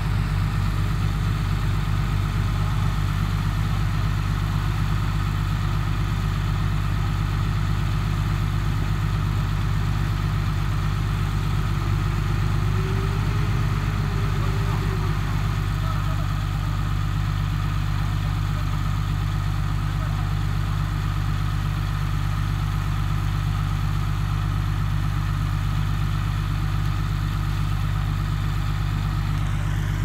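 Heavy construction-machine diesel engine running steadily at a constant low speed, a deep even drone with no revving.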